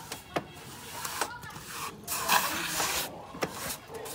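Plastering trowel or float scraping and rubbing fresh render onto a cement block wall, in a few long strokes with short clicks between them.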